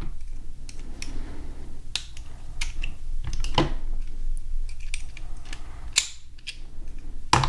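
Master Lock padlocks being bypassed one after another: a string of sharp, irregularly spaced metal clicks as the tool goes into the unshielded back of the keyway and the shackles spring open. The loudest click comes near the end. A steady low hum runs underneath.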